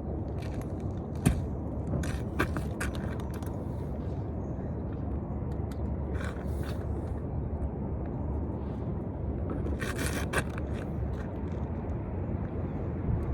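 Steady low outdoor rumble with scattered short knocks and scrapes of carpentry work on wooden framing; the sharpest knock comes about a second in and a quick cluster near the end.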